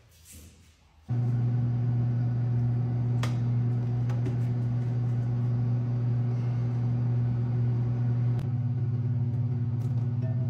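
A loud, steady low electrical hum that starts abruptly about a second in and holds one pitch, its texture changing slightly near the end.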